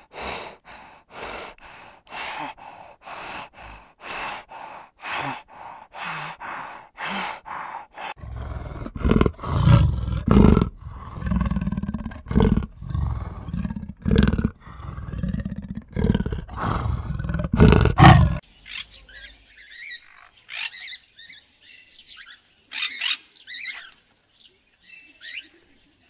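A spotted hyena giving a rapid run of short, high-pitched calls, about two or three a second. About eight seconds in, this gives way to a cheetah's loud, deep rumbling in repeated pulses. From about eighteen seconds in there are scattered, quieter high squawks and chirps from macaws.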